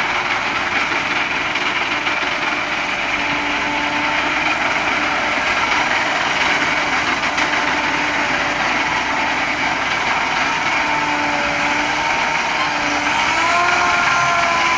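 Fendt 900 tractor running under way with a front-hopper seed drill combination, a steady mechanical noise with faint whining tones that shift and rise near the end.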